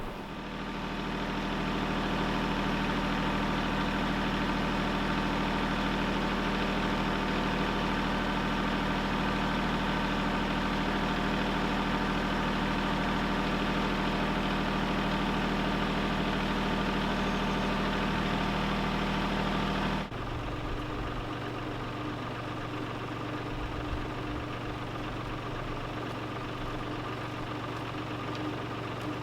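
An engine running steadily at idle. About 20 seconds in it changes abruptly to a different, slightly quieter steady hum.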